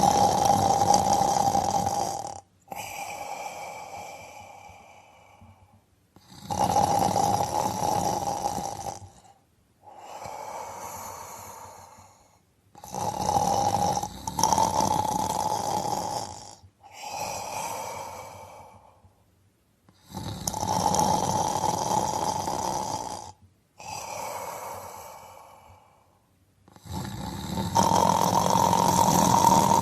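A person snoring in a slow, regular rhythm, about one breath every six and a half seconds. Each loud snore lasts two to three seconds and is followed by a softer, fading breath with a faint whistle in it.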